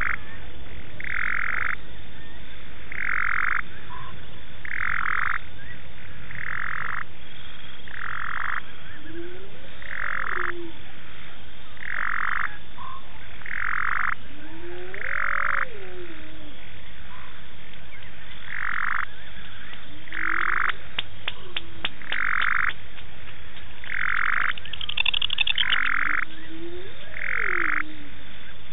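Frogs calling: one frog repeats a short call evenly about every two seconds, while a lower call rises and falls in pitch four times. A quick run of clicks comes about three-quarters through, followed shortly by a brief high trill.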